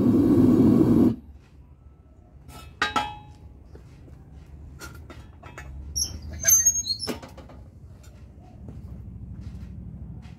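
Propane furnace burner running with a steady rumble, shut off suddenly about a second in. Then scattered metal clinks and knocks, some briefly ringing, as equipment is handled.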